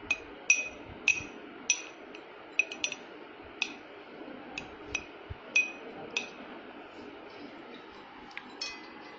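A spoon repeatedly striking the inside of a tall drinking glass as boiled vermicelli is pushed down into it: about a dozen short, ringing clinks at an uneven pace, pausing briefly near the end.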